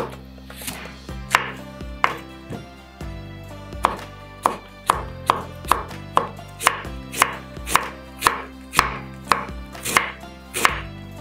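Kitchen knife chopping cabbage on a wooden cutting board: a few scattered strokes, then from about four seconds in a steady run of about two to three chops a second. Soft background music underneath.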